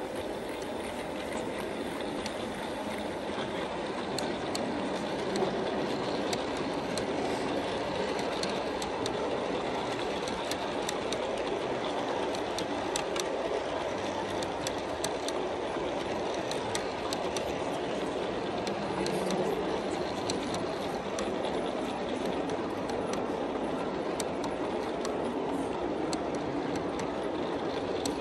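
G scale model freight train rolling past on garden-railway track: a steady rumble of wheels, with many small irregular clicks as the wheels cross the rail joints.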